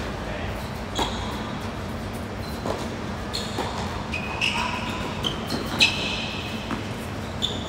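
Tennis rally in an indoor hall: a series of sharp racket-on-ball strikes, the loudest about six seconds in, with short high squeaks of tennis shoes on the hard court between them. A low steady hum sits underneath.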